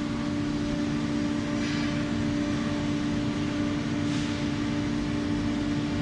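Automatic corrugated cardboard baler running: a steady machine hum with two low tones, and a soft hiss that swells briefly twice.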